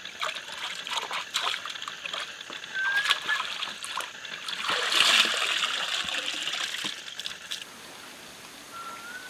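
Shallow stream water splashing and sloshing as a man wades and works his hands and a woven basket in it, loudest about five seconds in. The splashing stops near the end, leaving a quiet steady hiss, and a short rising whistle sounds twice.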